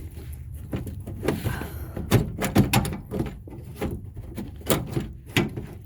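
A series of irregular knocks and clunks as the door lock actuator assembly is worked loose inside the car door shell, several of them loud and sharp.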